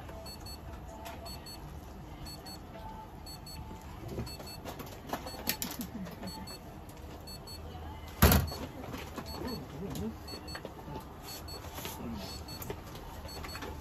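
Quiet room background with faint murmured voices and a faint, evenly repeating high ticking. One sharp knock comes about eight seconds in.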